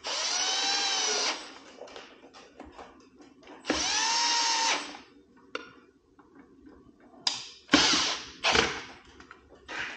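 Cordless drill/driver driving screws into a metal case cover: two runs of a little over a second each, the motor whine rising in pitch as each starts. Several shorter bursts follow near the end.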